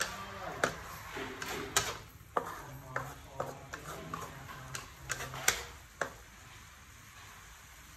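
Wooden spatula knocking and scraping against a metal frying pan while stir-frying shredded egg and pickled mustard greens, in irregular clacks about every half second that stop about six seconds in.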